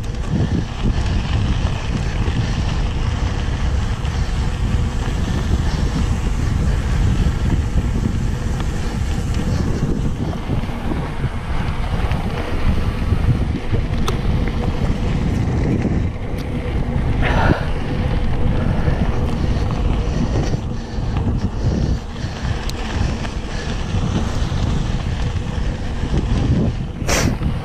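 Wind buffeting the microphone of an action camera on a mountain bike climbing a dirt singletrack, a steady rumbling noise, with two brief sharper sounds, one about two-thirds of the way through and one near the end.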